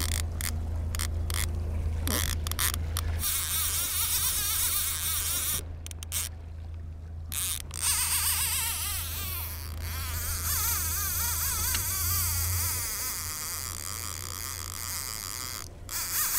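Fishing reel's drag buzzing in uneven spells as a hooked kingfish pulls line off the reel, its pitch wavering. It stops for about two seconds midway, over a steady low hum.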